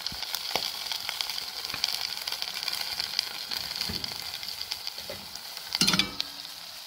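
A saucepan of stewed dried cowpea leaves in tomato-and-onion sauce simmering on the stove, sizzling with a steady crackle of small pops as the sauce cooks down. There is a brief louder clatter about six seconds in.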